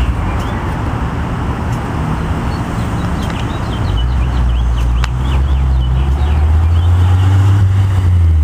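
Honda S2000 four-cylinder engine running through an HKS exhaust with a test pipe in place of the catalytic converter. The exhaust hums steadily, then about four seconds in a much louder, deep drone comes in and builds slowly.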